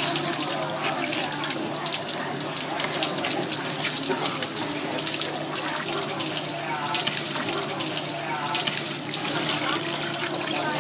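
Tap water running in a steady stream and splashing onto a fish and a wet wooden cutting board, with short scrapes and cuts of a knife working the fish.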